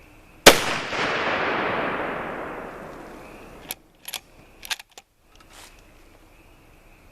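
A single rifle shot from a Mossberg Patriot chambered in .350 Legend, about half a second in, with a long echo rolling away over some three seconds. A few sharp clicks follow about a second after the echo dies.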